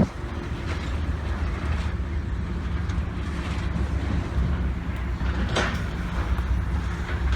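Car driving, a steady low road and engine rumble, with a short swell of noise about five and a half seconds in.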